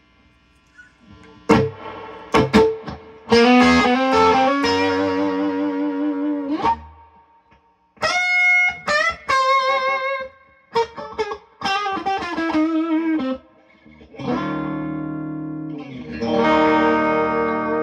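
Electric guitar played through a Matchless Lightning Reverb tube amp with its reverb control turned up: a few chords and short phrases, each left to ring out, with brief pauses between them.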